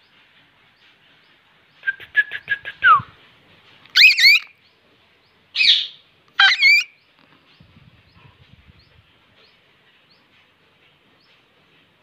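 Caged parakeets calling: a quick run of clicks ending in a falling whistle about two seconds in, then three loud, shrill calls that bend up and down in pitch between about four and seven seconds in.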